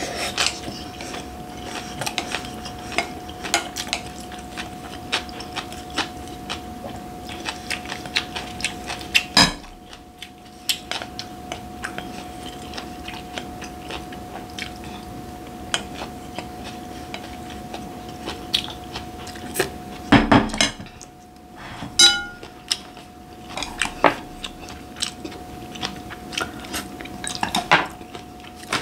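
Eating at the table: a metal spoon and chopsticks clinking and scraping against a glass bowl, with chewing, over a faint steady hum. A few louder knocks come around a third of the way in and again about two-thirds in, one of them ringing briefly.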